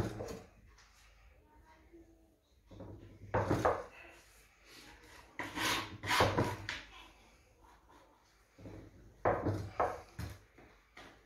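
Blocks of kaşar cheese being worked on a wooden board: four bouts of scraping and knocking, a few seconds apart, with quiet between.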